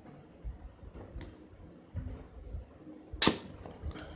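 Hands working the hard plastic covering off a phone box: small crinkles and taps, then one loud, sharp snap a little over three seconds in.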